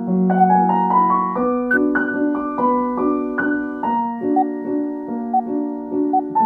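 Background piano music: a steady run of single notes over held lower notes.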